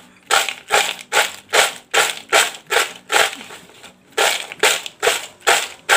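Crisp fried banana chips being tossed in a plastic bowl to coat them with masala, rattling in even shakes about two and a half times a second, with a short pause a little past halfway.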